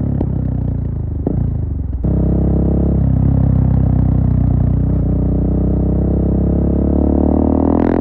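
Single-cylinder engine of a 2017 KTM 690 Duke with a full Akrapovic exhaust, riding. For about two seconds the revs fall off on a closed throttle, with two short clicks. Then the throttle opens and the exhaust note jumps louder and holds strong, rising in pitch near the end.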